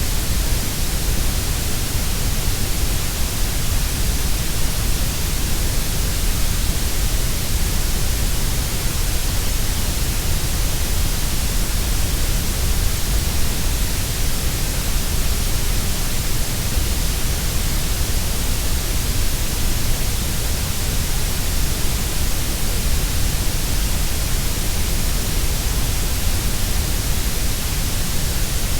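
Grey noise: a steady, unchanging hiss, fuller in the deep bass and the highs and thinner in the middle.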